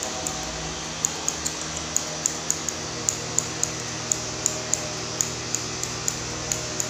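Grooming scissors snipping a dog's coat around the head, in a run of quick, sharp snips about four a second that starts about a second in. Under them is a steady hum.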